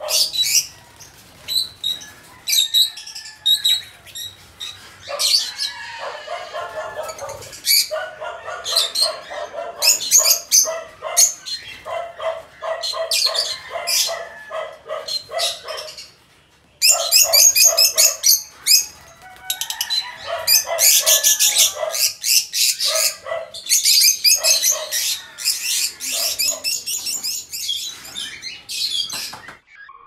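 A flock of lovebirds chattering with rapid, shrill chirps and calls, many birds at once. The calls dip briefly about halfway through, then come back at their loudest.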